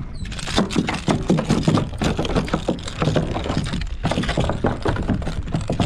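A small redfish thrashing and splashing at the kayak as it is landed: a quick, irregular run of splashes and knocks over a steady low rumble.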